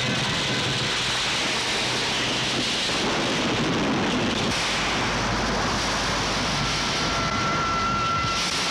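Film sound effect: a steady rushing, rumbling noise, storm-like, with a thin high tone held for about two seconds near the end.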